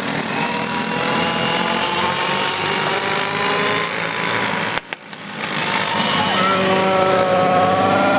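Several small single-cylinder racing kart engines of the Briggs & Stratton Animal class running at speed, their pitches rising and falling independently as the karts accelerate and lift off. About five seconds in the sound cuts out briefly with a click, then the engines swell back in.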